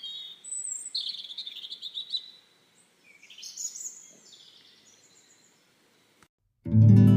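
Small birds calling and chirping in short high whistles and trills, thinning out after a few seconds. Near the end the sound cuts to silence and a loud plucked guitar note strikes and rings on.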